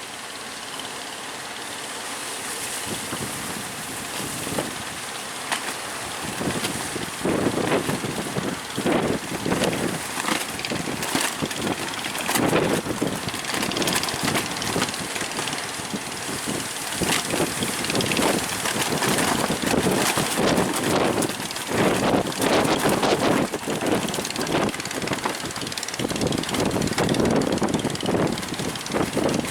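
Strong gusty wind buffeting the microphone over the rushing of high sea surf, with irregular rumbling surges from about six seconds in.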